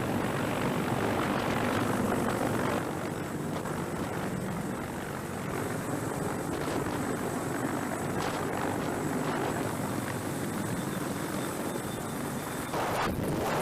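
CH-53E Super Stallion heavy-lift helicopter hovering overhead: steady rotor and turbine noise with rotor-wash rushing past the microphone, growing louder near the end.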